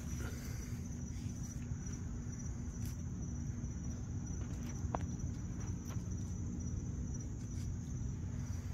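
Night insects chirring, a steady high-pitched trill that does not change, over a continuous low rumble. A single faint click comes about five seconds in.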